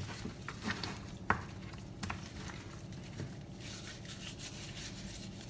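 Gloved hands rubbing spice seasoning into raw hake pieces in a plastic bowl: soft, irregular rubbing and handling noises with scattered light clicks and taps, one sharper tap about a second in.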